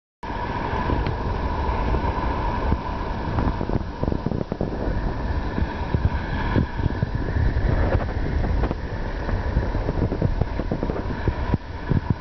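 Zspas Poseidon hot tub with its jets running: water churning and bubbling over a steady pump hum, with a rough low rumble.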